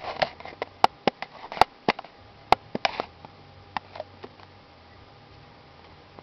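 Handling noise: about a dozen irregular sharp clicks and taps over the first four seconds or so, then only a faint steady hum.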